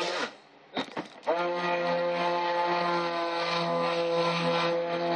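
Stick blender motor mixing cold process soap batter in a plastic bucket. A short pulse winds down at the very start, another brief pulse comes just before a second in, and then the blender is switched on and runs steadily.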